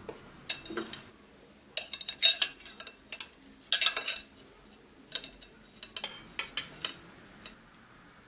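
Metal spatula scraping and clinking against a glass baking dish as it slides under a stuffed eggplant portion and lifts it out of the sauce: a series of short scrapes and sharp clicks, loudest about two to four seconds in.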